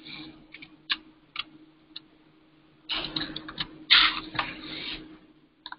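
Computer keyboard being typed on while code is edited: a few separate key clicks, then a quick flurry of keystrokes about three seconds in. A faint steady hum runs underneath.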